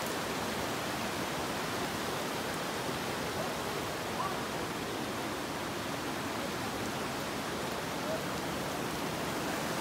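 Steady rushing of a fast, rocky river running over stones.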